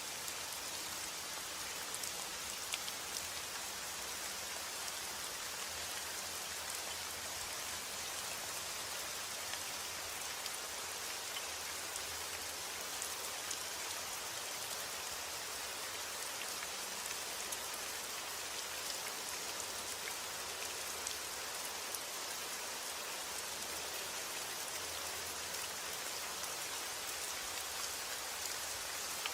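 Steady rain falling, a constant hiss with scattered individual drops ticking on a surface.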